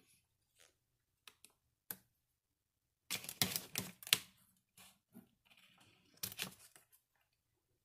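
Adhesive vinyl contact paper being handled and pressed down, crackling and clicking: a few single clicks, then two spells of rapid crackling, about three seconds in and again near six seconds.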